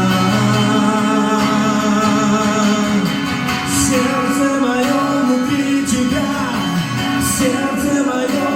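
Live worship band music with singing, guitar among the instruments, played loud and steady between sung lines of the song.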